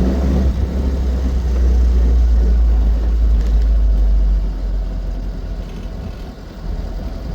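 Austin 7 being driven: a steady low engine and road rumble that eases off about four seconds in.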